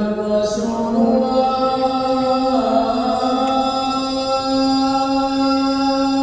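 Islamic chanting: a single voice holds long notes that step between a few pitches, ending on a long steady note.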